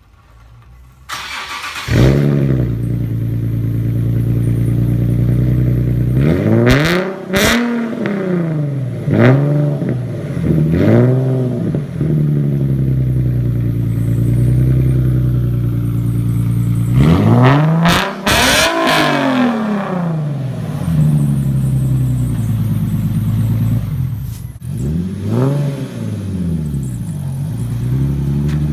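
Nissan 370Z's 3.7-litre V6 through a freshly fitted Tomei Expreme titanium catback exhaust, still on stock cats. It starts up about two seconds in and idles, then is revved in a series of sharp throttle blips that rise and fall, two back to back near the middle, showing off the new exhaust's note.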